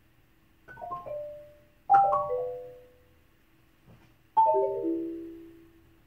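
Marimba played with four yarn mallets: three quick falling runs of notes, about a second in, at two seconds, and near the end, each left to ring and fade.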